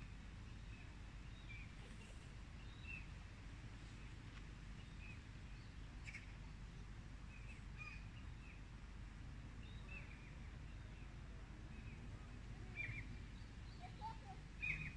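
Wild birds chirping now and then, with short high calls scattered through and a few louder ones near the end, over a faint low outdoor background noise.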